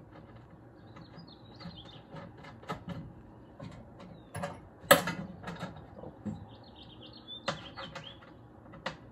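Small metal clicks and clinks of bolts and washers against a metal snowmobile battery box as it is bolted down, with one loud sharp clack about five seconds in. Birds chirp briefly in the background twice.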